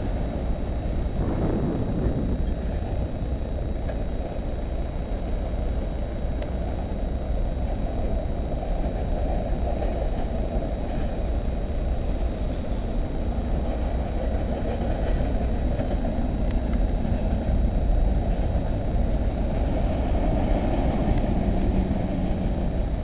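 Freight train cars, many of them autoracks, rolling past with a steady rumble.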